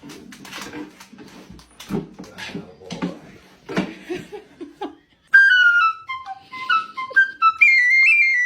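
Scattered knocks and short low sounds, then about five seconds in a high, piping, whistle-like tune starts suddenly and becomes the loudest sound. It is made of single notes stepping up and down.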